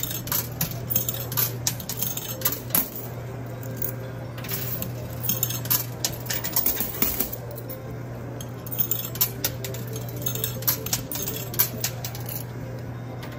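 Quarters clinking and clattering in a coin pusher machine, irregular metallic clicks as coins drop onto the pusher shelf and the coin bed, over a steady low hum.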